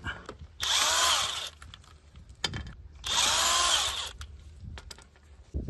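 DeWalt XR cordless impact wrench undoing car wheel nuts, run in two bursts of about a second each, roughly a second and a half apart.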